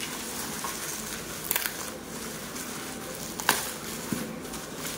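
Bubble wrap and a plastic mailer rustling and crinkling as hands unwrap a parcel, with two sharp crackles about two seconds apart.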